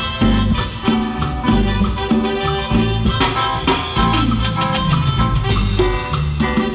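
Amplified live band playing upbeat Latin dance music with drum kit and bass. A falling glide runs down through the low notes about four seconds in.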